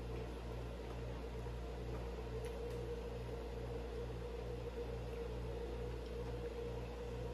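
Steady low hum with a faint throb pulsing about twice a second, and a few faint clicks.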